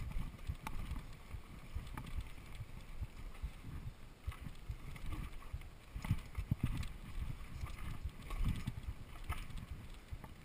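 Mountain bike rolling fast over a rough dirt trail of roots and rocks, heard through a handlebar-mounted camera: constant tyre rumble with irregular knocks, thuds and rattles as the bike jolts over the bumps, a few sharper knocks standing out.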